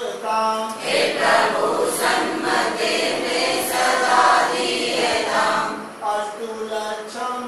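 A class of students singing a prayer together in unison, many voices in a chant-like tune; the singing is fullest and loudest through the middle.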